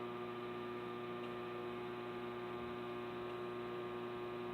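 Faint, steady electrical hum with several constant tones, unchanging throughout.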